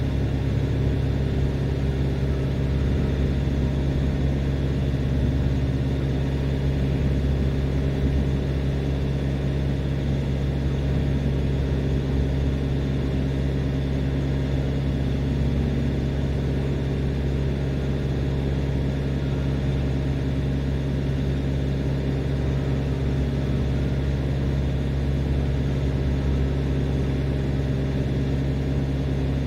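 Steady diesel hum of a parked refrigerated tractor-trailer running, holding one even speed throughout.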